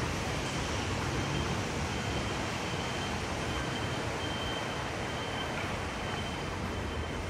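Steady rushing noise of typhoon wind, with an uneven low rumble of wind buffeting the microphone. A faint, thin high whine runs through the middle.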